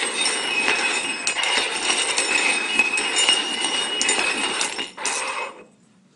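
Cups being shuffled around on a hard surface, with continuous scraping and clinking that stops about five and a half seconds in.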